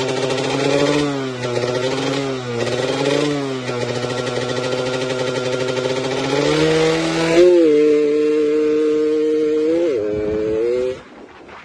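Yamaha F1ZR two-stroke moped engine running, its revs rising and dipping a few times, then holding steady. About two-thirds of the way through the pitch jumps and the sound gets louder, and it stops abruptly near the end.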